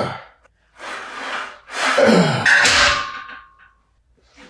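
A person breathing hard: three heavy, noisy breaths about a second apart. The last and loudest is drawn out into a groaning exhale that falls in pitch.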